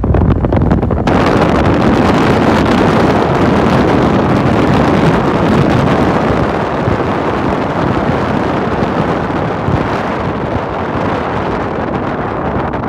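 Steady loud rush of wind and road noise in a moving car, buffeting the microphone. It turns hissier about a second in.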